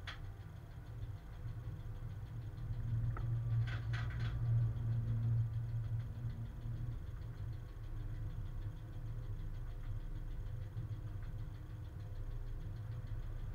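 Cab of a Czech class 130 electric freight locomotive under way: a steady low rumble and hum from the traction equipment and the wheels on the rails. The rumble swells for a few seconds, and a few short high clicks or squeaks come about three to four seconds in.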